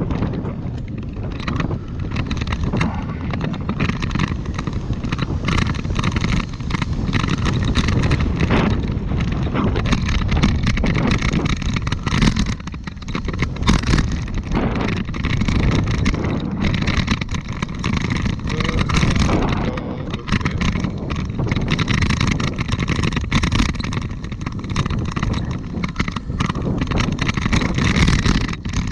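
Bicycle riding over asphalt, heard from a camera on the bike: wind rumbling on the microphone, with tyre noise and frequent small rattles and knocks from the frame over the road surface.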